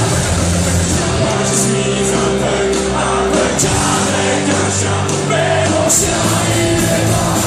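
Live rock band playing a loud punk-rock song, with sustained guitar and bass chords over drums and crashing cymbals.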